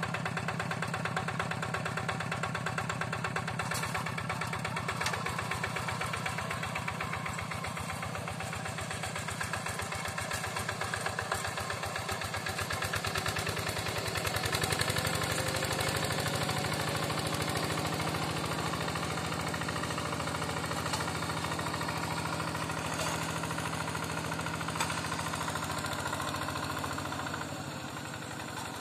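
Single-cylinder diesel engine of a Yanmar two-wheel hand tractor running steadily under load as it tills wet paddy mud. It grows a little fainter near the end as the tractor moves away.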